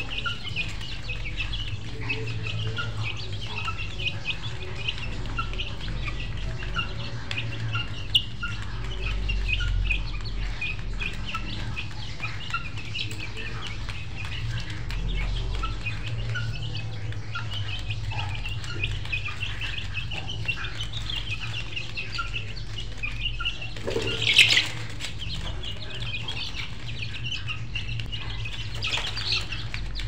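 Birds chirping in quick, continuous short calls, with chickens clucking, over a low steady hum; one louder, brief sound stands out about four-fifths of the way in.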